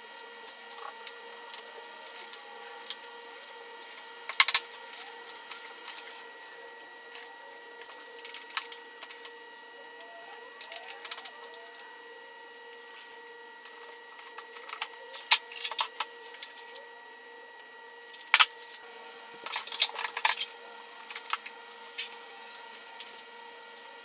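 Irregular clicks and clatter of hand tools and parts being worked on an engine's valve cover, the sharpest knocks about four seconds in and twice more past the middle, over a steady hum.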